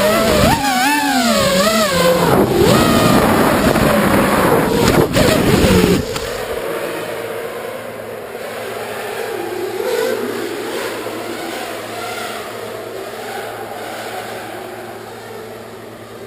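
Racing quadcopter's Emax 2204 brushless motors whining, heard from on board, the pitch swinging up and down with the throttle. About six seconds in the whine cuts off abruptly as the quad comes down on the concrete floor, leaving a quieter, steady background with a faint whine.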